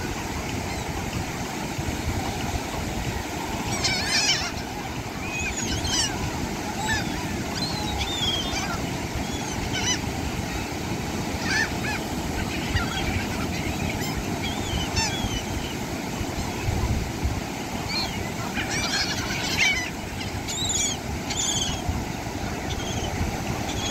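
A flock of laughing gulls calling in repeated bursts every few seconds, over the steady wash of surf.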